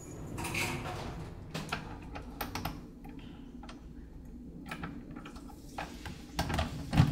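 Keys clicking and rattling in a door lock, a run of small irregular clicks over a low steady hum, ending in a louder clunk near the end as the lock gives.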